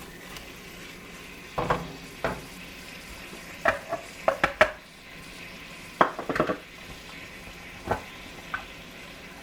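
Chicken pieces sizzling softly in oil and biryani spices in a pot, with a utensil clinking and scraping against the cookware about a dozen times in short clusters.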